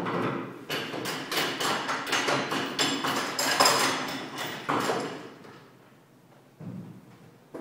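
A quick, irregular run of knocks, taps and clatter that starts about a second in and stops about five seconds in.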